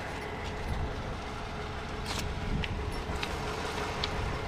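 Pickup truck engine running with a steady low rumble and hum as the truck, stuck in deep slushy snow with traction grippers on its tires, tries to drive out. A few sharp clicks sound over it.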